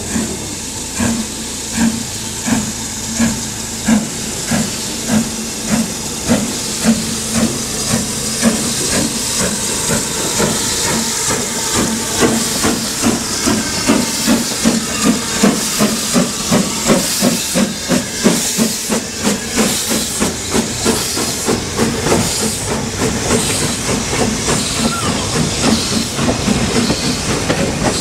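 BR Standard Class 9F 2-10-0 steam locomotive no. 92212 working a train, its exhaust beats quickening as it gathers speed, over a steady loud hiss of steam escaping around the cylinders.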